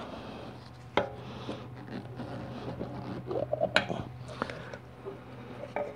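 Screwdriver prying and tapping at the servo cover on a 4L60E transmission case: scattered sharp metal clicks and scrapes, a cluster of them loudest just under four seconds in.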